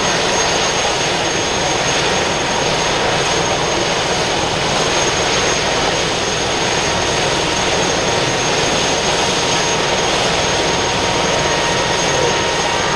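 Airbus H145 helicopter running on the ground with its rotors turning: a steady turbine whine over a constant rushing rotor noise.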